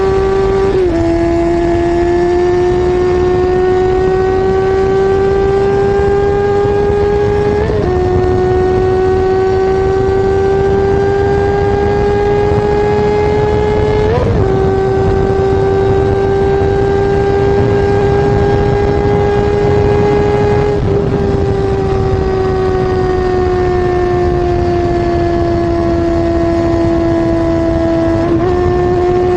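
Kawasaki Ninja ZX-6R 636's inline-four engine running at high rpm through an SC-Project CR-T slip-on exhaust while riding. It is one steady, high engine note whose pitch climbs slowly, breaking with brief jumps at about a second, eight and fourteen seconds in. From about two-thirds of the way through the pitch sinks slowly, then steps back up near the end.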